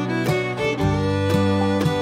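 Instrumental background music.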